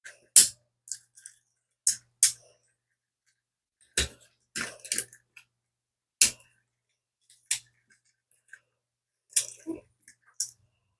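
Hard plastic parts of a Transformers action figure clicking and snapping as it is handled and transformed: about a dozen sharp clicks at irregular intervals, some in quick pairs.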